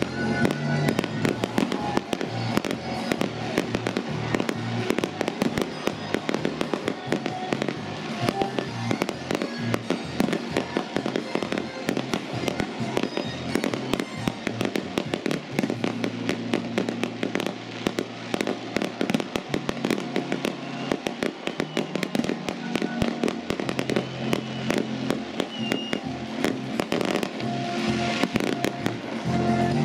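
Aerial fireworks display: a dense, continuous run of shell bursts, bangs and crackles, several a second, with music playing underneath.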